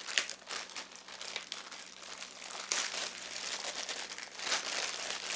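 Clear plastic bag crinkling and rustling as it is handled and pulled open around a foot pedal, with a few louder crackles.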